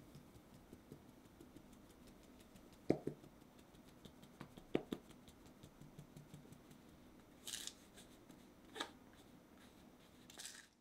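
Cake flour being sifted through a fine-mesh metal sieve: a quiet, rapid ticking and rustling of the mesh as it is shaken, with two louder knocks and a few short swishes.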